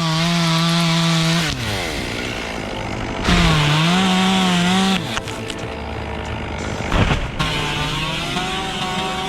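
Two-stroke chainsaw running at high revs, dropping back about one and a half seconds in, then revving up again with its pitch wavering as it bites into wood. A brief sharp knock about seven seconds in.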